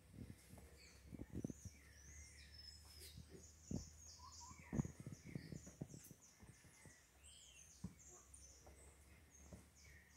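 Faint twittering of small birds, a steady run of short high chirps, with soft thuds and scuffles from kittens play-fighting on a rug; the loudest thuds come a little before and a little after the middle.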